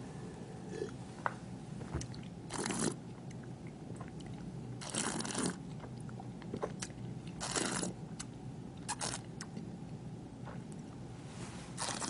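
A person tasting wine, slurping it and drawing air through it in the mouth. There are about five short noisy slurps a couple of seconds apart; the one about five seconds in is the longest.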